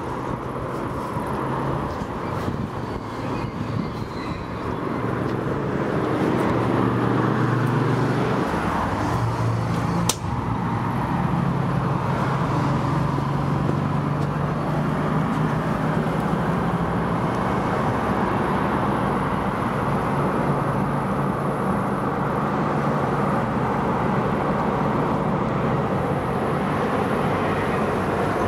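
Glass elevator's drive machinery running with a steady low hum as the car travels up toward the landing after being called. A single sharp click comes about ten seconds in.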